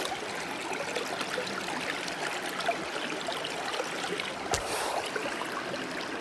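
River water running steadily around a sluice box, with a single sharp knock about four and a half seconds in.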